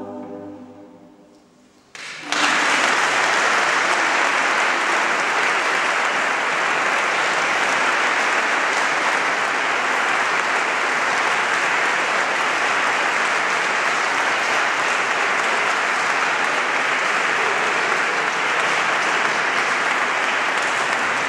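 A choir's last held chord fades out, then about two seconds in the audience breaks into steady applause that carries on.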